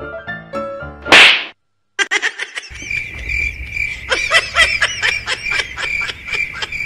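One loud, sharp slap about a second in, as a thin pink slice is smacked onto a cat's head. A few music notes come before it. After a short silence comes a run of quick, rhythmic chirping clicks over a steady high tone.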